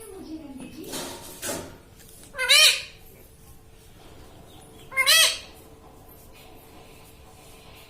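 Indian ringneck parrot giving two loud, short, wavering calls about two and a half seconds apart.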